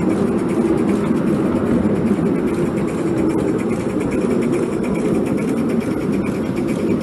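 5-inch gauge J94 Austerity 0-6-0 live-steam model locomotive running under load: a steady, continuous running noise with no break.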